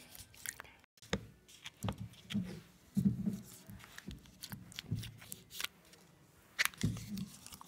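Fingers squishing and poking the slime filling of a popped anti-stress ball in a plastic cup, making irregular soft clicks and squishes.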